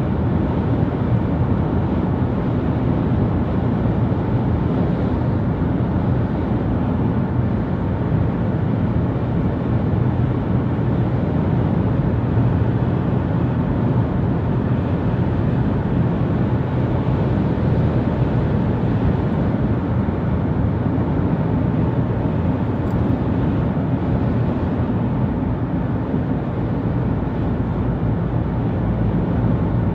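A car driving at speed, heard from inside the cabin: a steady low rumble of road and engine noise that does not change.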